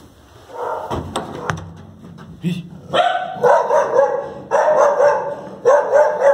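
A dog barking in repeated loud bursts, starting about three seconds in. Before that there are a few handling clicks.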